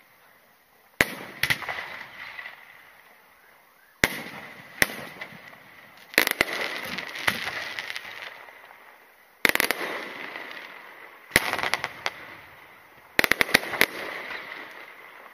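Aerial firework shells bursting in the sky: sharp bangs every few seconds, each followed by a crackling hiss of falling stars that dies away, with a quick run of several bangs near the end.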